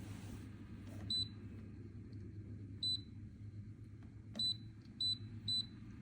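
Five short, high-pitched electronic beeps from a humidifier's touch control panel, as its buttons are pressed: one at about a second in, one near three seconds, and three close together in the last second and a half. Under them runs a steady low hum.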